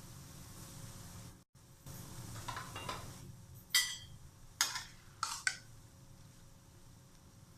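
Metal kitchen utensils clinking against cookware: four or five sharp clinks in the second half, over a steady background hiss.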